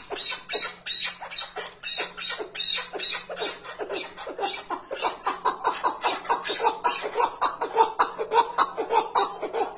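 Chukar partridge calling in a long, fast, unbroken series of short sharp notes, about five a second; the bird is of the strain keepers call the Iraqi chukar.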